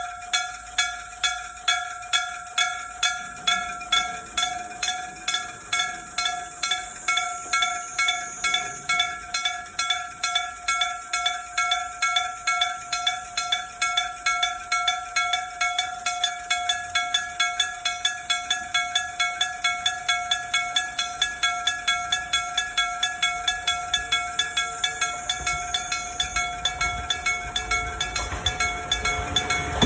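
Electric-bell level crossing warning bell: a hammer striking a gong in a fast, even rhythm, each strike ringing on with a bright metallic tone. A low rumble builds underneath near the end.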